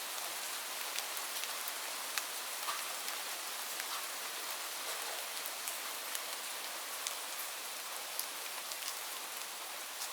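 Steady rainfall, a continuous hiss with many individual raindrops tapping sharply on surfaces.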